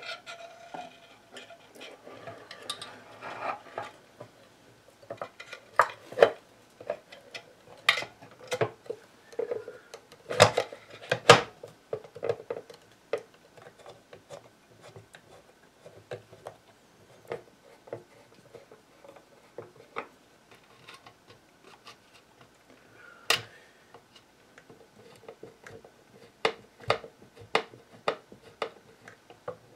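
Irregular clicks, knocks and light metallic clinks of hands fitting a wired amplifier front-panel assembly into a small wooden cabinet, with the sharpest knocks about ten to eleven seconds in.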